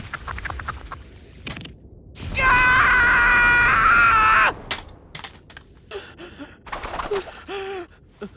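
A cartoon character's voice: a loud, high-pitched scream held for about two seconds, starting about two seconds in, then shorter strained cries and groans. A quick rattle of clicks comes at the very start.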